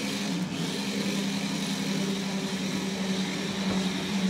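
Remote-control toy stunt car's small electric motors running with a steady whir.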